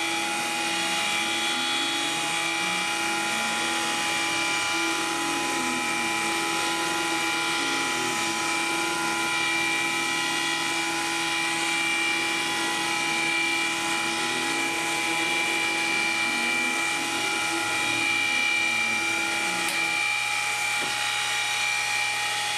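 Sieg mini mill converted to CNC, milling an aluminium plate with a small end mill. The spindle motor runs with a steady whine, while the axis stepper motors hum in tones that rise and fall as the table speeds up and slows down. At the very end the whine begins to drop in pitch as the machine loses power.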